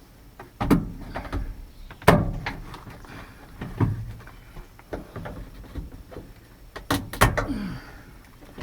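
Sharp knocks and clicks of metal door-handle parts being handled and pushed into place in a pickup truck door, five or so separate knocks with quieter fumbling between them and two close together near the end.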